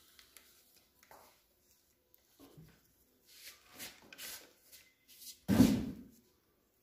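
Knitting needles and wool yarn being worked by hand: soft rustling and small clicks as stitches are made. Near the end comes one short, dull thump, the loudest sound.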